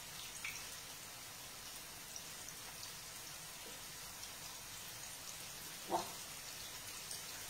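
Faint sizzling and light crackle of sliced almonds toasting in hot oil in a small frying pan, with one short knock about six seconds in.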